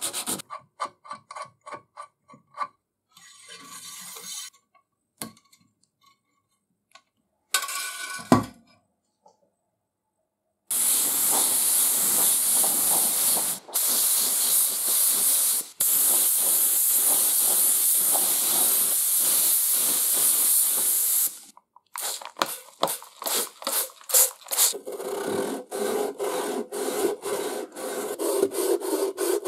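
Short rubbing strokes of a sanding sponge on filler over metal at the start, and a single thump about eight seconds in. From about eleven seconds in, a long steady spray hiss of 2K primer being sprayed onto the part, broken briefly twice and stopping about twenty-one seconds in. Then quick rhythmic strokes of wet sanding with a sanding block on the primed metal.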